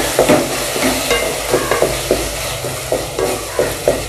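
Spatula stirring and scraping a thick tomato-onion masala around an aluminium pot, a few strokes a second against the metal, over the steady sizzle of the paste frying in oil. The masala is being sautéed with its spice powders until the oil separates.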